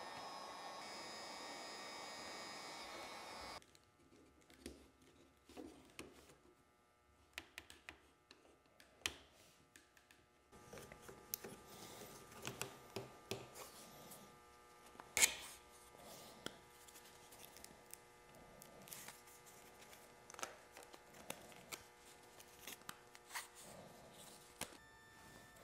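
Electric heat gun blowing steadily, heating the steering-wheel hub to soften the glue around the centre logo, then switched off about three and a half seconds in. Afterwards there are scattered small clicks and taps of metal wheel parts being handled.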